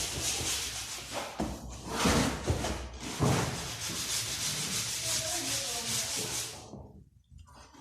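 Sandpaper scraping over wooden window shutters in repeated strokes, sanding off the old paint; it stops about six and a half seconds in.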